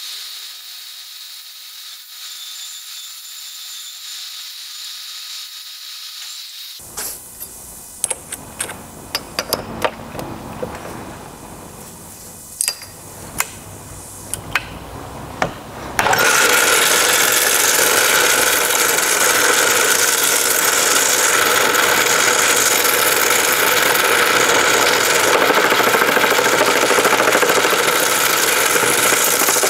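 A vertical bandsaw cuts a steel tube with a thin, high-pitched sound. It is followed by a string of sharp metal clicks and knocks as the tube is handled and clamped in a metal lathe's chuck. About halfway through, the old belt-driven metal lathe starts and runs loud and steady, turning the tube.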